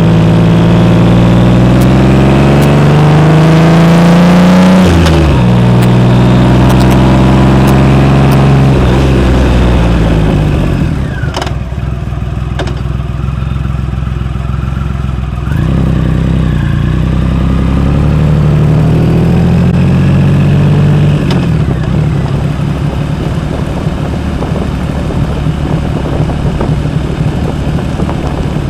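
Triumph Rocket 3 Roadster's 2.3-litre inline-three engine through a Jardine exhaust, accelerating: the pitch climbs, drops at a gear change about five seconds in, and climbs again. Around ten seconds in the throttle closes and the engine runs lower and quieter, rises once more for a few seconds, then settles into a low, uneven running.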